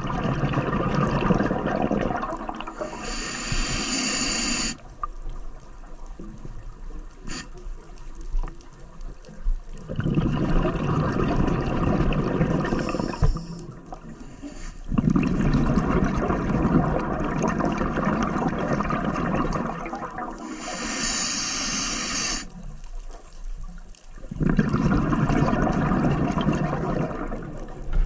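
Scuba diver breathing through a regulator underwater: a hiss on each inhale and a long bubbling rumble of exhaled bubbles on each exhale, repeating every several seconds.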